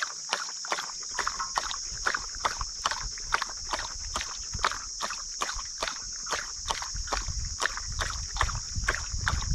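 A dog lapping water from a bowl with its tongue, an even run of wet laps at about three to four a second. A steady high hiss runs underneath.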